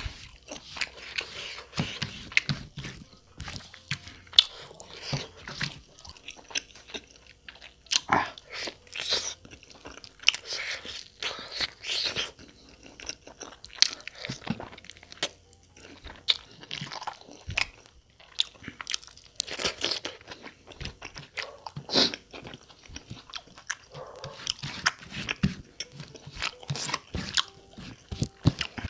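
Wet chewing and lip-smacking of mouthfuls of mutton curry and rice eaten by hand, with sticky squelches of fingers mixing rice and gravy on a banana leaf. Many short, irregular smacks.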